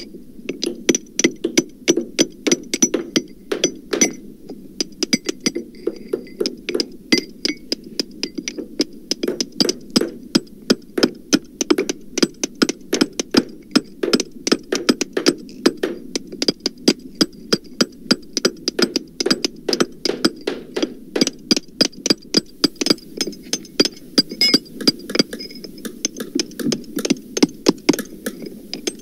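Hammers striking, several blows a second at an uneven pace. The recording has been pitched down so the blows sound deeper.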